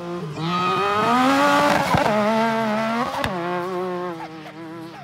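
Side-by-side UTV engine accelerating hard, its pitch climbing over the first two seconds, then dropping back and fading away near the end.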